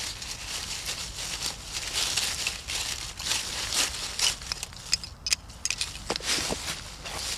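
Hands scrabbling and digging through dry fallen leaves: an irregular run of crackling, crunching rustles with sharper snaps now and then.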